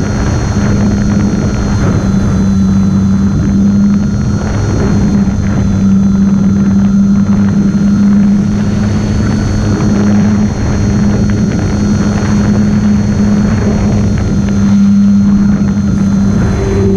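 Electric motor and propeller of a small solar-powered model plane running steadily in flight, heard from on board with wind rushing over the microphone.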